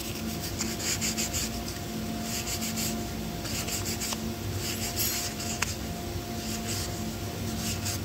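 Short, hissy rubbing and scraping strokes, coming in irregular clusters, as a rotor vane from a pneumatic air gun is cleaned by hand.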